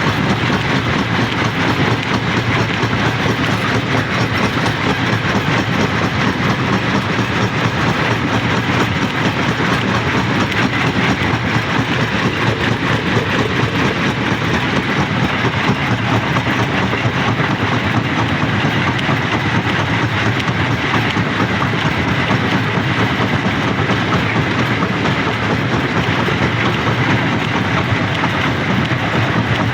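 Rock crusher running, with stones grinding and rattling through it as a steady, unbroken clatter of many small impacts.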